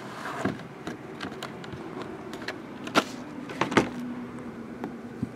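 8x10 photographs from the box break being handled: light rustling with scattered clicks, the two sharpest about three seconds in, over a faint steady hum.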